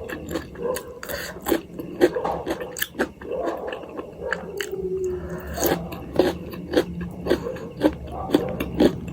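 A person chewing food close to the microphone, with wet mouth clicks and smacks at a steady pace of about two a second.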